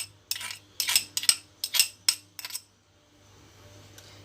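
Kitchen utensil clinking and tapping against a bowl, about eight quick clinks over two and a half seconds as ingredients are added to a mixing bowl, then it stops.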